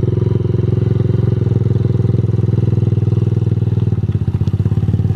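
Kawasaki pit bike's small four-stroke single-cylinder engine running steadily at low revs as the bike pulls away on a rear wheel made of tennis balls.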